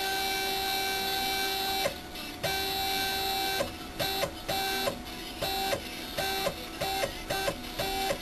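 Modelmaster CNC mill's Z-axis stepper motor whining as the spindle head is lowered to bring the bit back down to its cutting height: one run of about two seconds, a second run of about a second, then a string of short bursts, each a fraction of a second.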